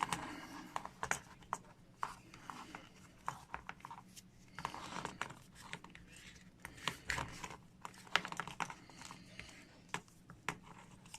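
Hard plastic action-figure parts being handled and worked together by hand: irregular clicks, taps and scraping.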